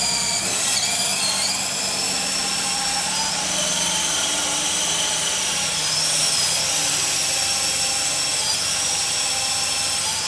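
Coaxial RC helicopter's twin electric motors and rotors whining as it lifts off and flies, the pitch rising near the start and then dipping and rising with the throttle.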